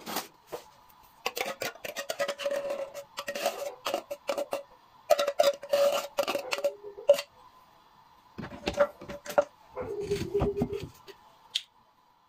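Metal spoon scraping and tapping inside an opened tin can to get chopped tomatoes out, in repeated bouts of clicks and scrapes with the can ringing under them. Duller knocks follow about ten seconds in.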